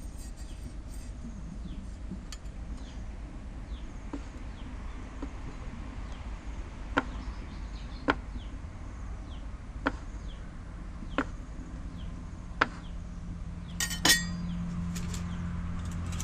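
Knife cutting bua loy dough on a chopping board, the blade knocking the board in separate strokes, about six, a second or so apart, starting about halfway through, the last with a short clink.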